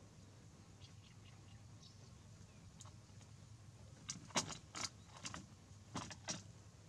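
A short run of sharp clicks and clatters of small hard objects, starting about four seconds in and coming in two quick clusters.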